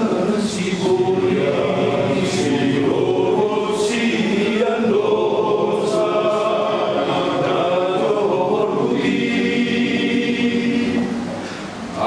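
Men's church choir singing together in long held notes. The sound eases off briefly near the end as a phrase closes.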